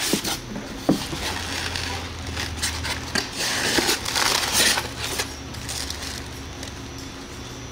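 Packaging being handled: a cardboard gift box and its foam insert are opened with a few sharp knocks, then wrapping is rustled and crinkled while a crystal wine glass is pulled out and unwrapped.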